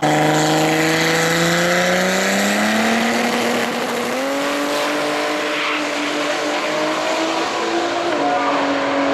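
Drag-racing car's engine at full throttle as it accelerates down the strip. A loud, steady note whose pitch climbs slowly, with a small step up about four seconds in.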